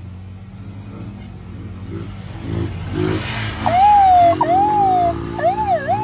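A vehicle engine hums steadily and grows louder as it draws near. Just over halfway in, a man starts imitating a police siren with his voice through a handheld megaphone: two slow wails, then a fast up-and-down yelp.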